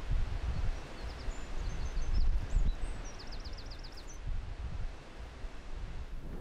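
Outdoor ambience of a low, gusty wind rumble with a small bird chirping high and quick, including a fast trill of falling notes, about eight a second, around three seconds in.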